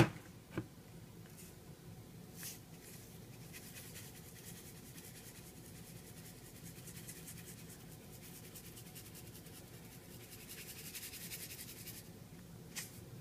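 A sharp click at the start, then the faint, fine rattle of seasoning being shaken from a plastic-lidded shaker canister over a baked potato, strongest near the end.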